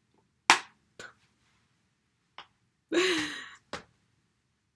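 A sharp slap-like smack about half a second in, then a few lighter clicks, and a short breathy vocal sound from a woman near the middle.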